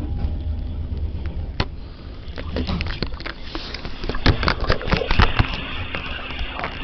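Handling noise from a phone being pulled out from under a jacket: fabric rubbing and a run of knocks and scrapes on the microphone from about two seconds in, over a low steady rumble.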